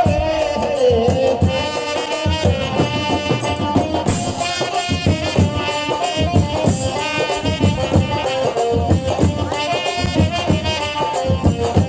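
Jatra stage music: a folk ensemble playing a melody over a steady hand-drum beat with rattling percussion.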